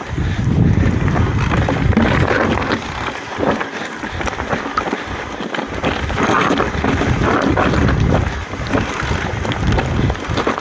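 Mountain bike coming slowly down a steep rocky trail: tyres crunching over stones and the bike rattling in frequent knocks, with wind buffeting the microphone.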